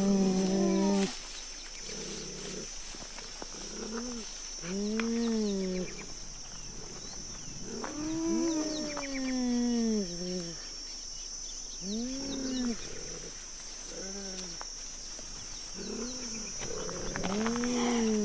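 Cheetah calling: a series of moaning calls every few seconds, each rising and then falling in pitch, some short and one longer drawn-out pair about halfway through.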